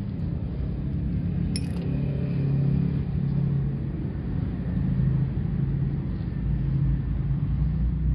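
Steady low rumble with a faint hum throughout, and a single sharp click about one and a half seconds in.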